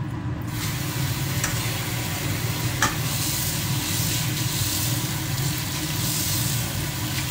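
Somen noodles boiling in a pot on the stove: a steady bubbling hiss over a low hum, with a light tap about three seconds in.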